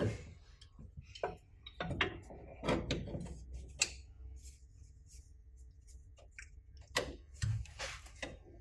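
Scattered short knocks and clicks of hand tools and metal parts being handled and tapped, several separate strokes with pauses between, over a low steady hum.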